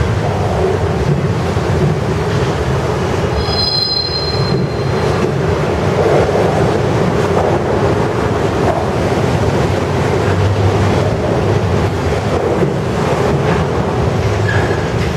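Autorack freight cars rolling past, a steady loud rumble of steel wheels on rail, with a brief high wheel squeal about four seconds in.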